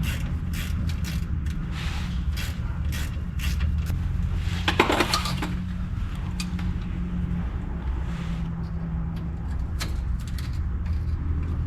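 Hand tools clicking and clinking on a rusted brake line clamp as it is worked loose, about two sharp metallic clicks a second at first, with a brief squeak about five seconds in. A steady low hum runs underneath.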